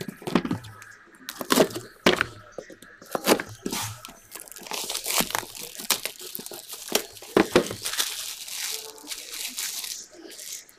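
Clear plastic shrink wrap on a box of trading cards crinkling and tearing as it is peeled off by hand, after several sharp clicks and taps of handling. The crinkling is densest in the middle and dies away near the end.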